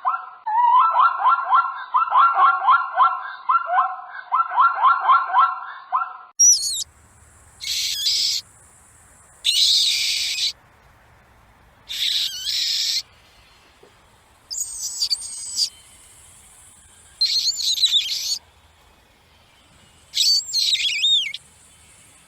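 Animal calls: a fast pulsed chattering call repeated in bursts of about two seconds, then, after a cut, a series of high squealing calls about a second long each.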